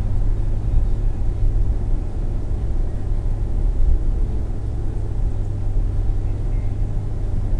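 Steady low rumble of a car's tyre and engine noise at highway speed, about 95 km/h, heard from inside the cabin.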